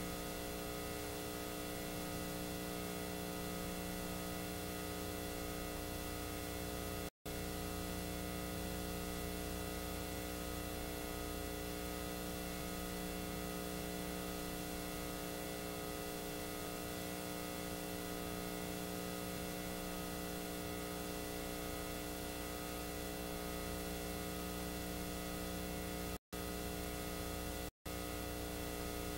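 Steady electrical hum made of several constant tones over hiss, from the playback of a VHS tape's blank stretch after the Paramount logo. The sound cuts out completely for an instant about seven seconds in and twice more near the end.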